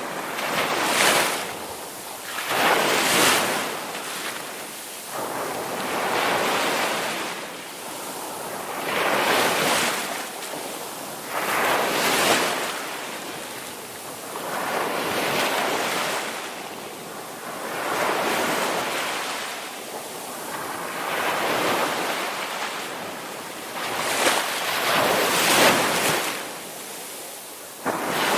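Ocean surf on a beach: waves breaking and washing up one after another, each a rushing hiss that swells and fades about every two to three seconds.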